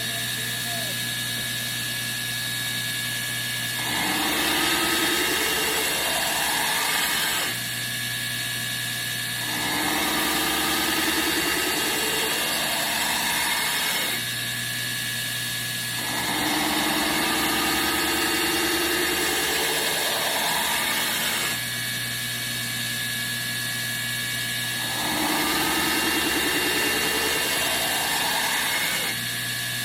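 Belt grinder running with a coarse 24-grit belt while a knife blade is pressed against it in four passes of several seconds each, grinding the edge bevel. Each pass adds a louder grinding hiss over the steady motor hum.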